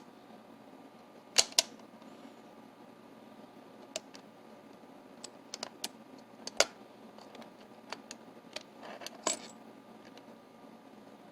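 Small metal parts of a Dorma mortise lock clicking and tapping as they are handled while the latch bolt is taken out. There are two sharp clicks about a second and a half in, another loud click past the middle, and scattered lighter ticks between them.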